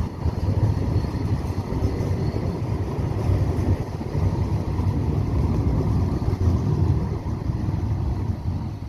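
Tram running by with a steady low rumble and a faint high whine in the first couple of seconds, the rumble easing off near the end.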